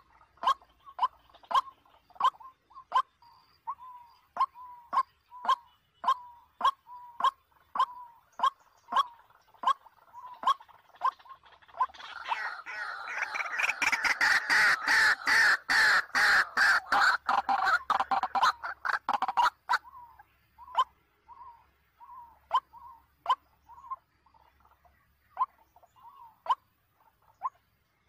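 White-breasted waterhen calling: short harsh notes repeated about two a second. Partway through, they build into a fast, louder run of calls for several seconds, then slow back to spaced single notes.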